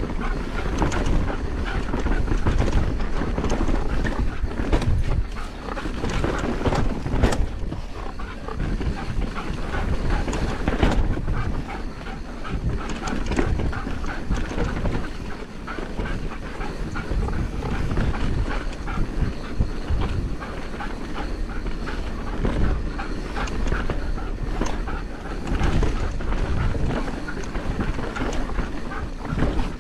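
Mountain bike tyres rolling over a dirt trail, with a dog panting hard as it runs alongside.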